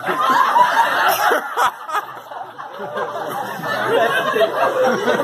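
Several people talking over one another and laughing.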